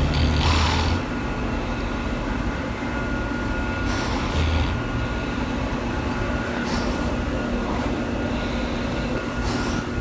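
Dog snoring in its sleep: four noisy breaths about three seconds apart over a steady low hum.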